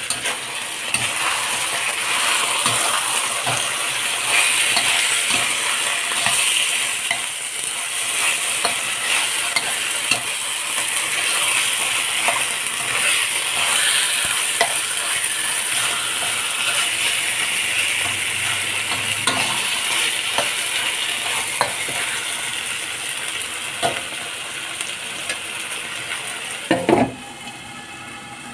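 Chicken pieces sizzling as they fry in a wok, with a metal spatula scraping and clicking against the pan as they are stirred. Near the end a glass lid is set on the wok with a knock, and the sizzle drops to a muffled hiss.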